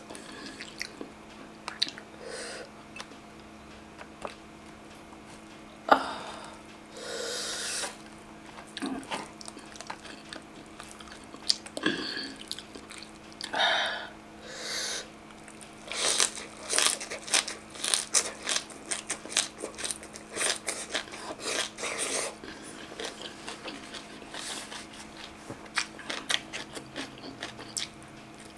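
Eating sounds: chewing and crunching boiled fiddlehead fern and green mango salad, with wet mouth clicks and short crunchy bursts that come thickest about two-thirds of the way through. A faint steady hum runs underneath.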